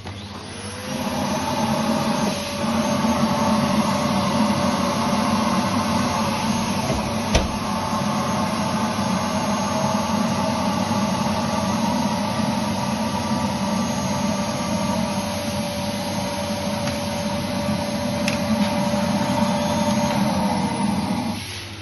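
Vacuum cleaner motor driving a home-made vacuum-forming table: it spins up with a rising whine, runs steadily while pulling the heated ABS sheet down over the mould, and winds down with a falling whine when switched off near the end. A single sharp knock about seven seconds in.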